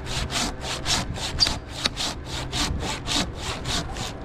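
Silky pruning handsaw cutting through white pine with quick, even strokes, about four or five a second.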